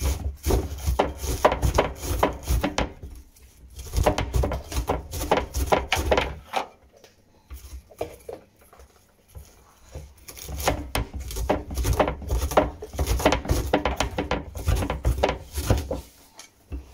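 Cleaver chopping cabbage on a wooden board: quick runs of knocks as the blade cuts through the leaves onto the wood, with a pause of a few seconds about halfway through.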